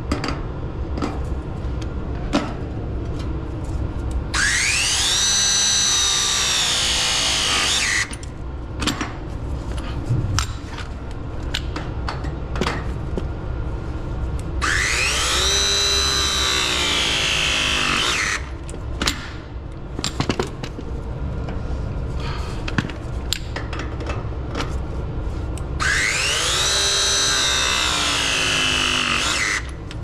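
Battery-powered copper press tool run three times, each press cycle a few seconds of motor whine that climbs in pitch, sags as it takes the load, then stops: press fittings being crimped onto copper heating pipe. Clicks and handling knocks between the presses.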